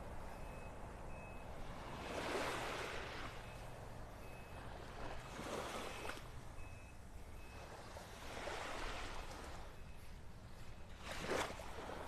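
Small Gulf of Mexico waves washing onto a sandy beach, each wash swelling and fading about every three seconds, the loudest one near the end. A faint, evenly spaced high beeping runs in the background through the first half.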